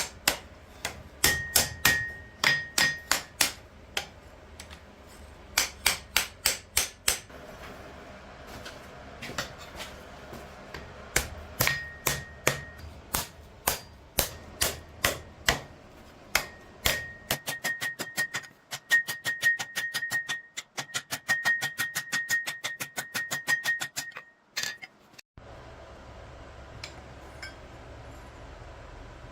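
Blacksmith's hammer striking steel on an anvil in groups of blows, the anvil ringing, then a quicker run of lighter taps. The hammering stops near the end, leaving a steady low hum.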